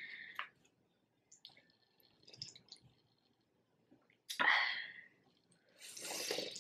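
Plastic spoon clicking faintly against a cup of miso soup, then two short noisy slurps of the broth off the spoon, about four seconds in and near the end.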